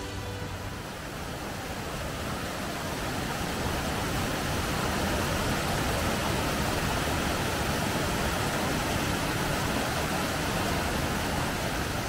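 Steady rushing roar of a 60 m mountain waterfall tumbling over rock and boulders, growing a little louder a few seconds in.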